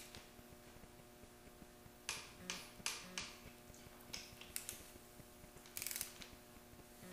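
Click-type torque wrench, preset to 45 foot-pounds, ratcheting and clicking as the connecting-rod cap bolts of a Ford 400 V8 are torqued down. The clicks are short and faint, several of them spread over a few seconds, over a faint steady hum.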